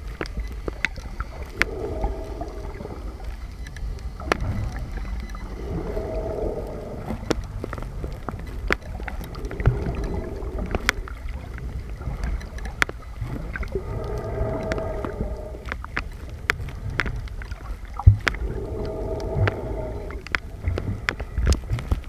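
Glass-bottom boat heard from its underwater viewing cabin: a steady low rumble with frequent short clicks and knocks, and a muffled moaning tone that swells and fades every few seconds.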